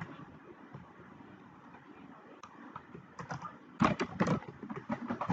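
Computer keyboard being typed on in short bursts: a couple of single clicks, then quick clusters of key taps in the second half, as login credentials are entered.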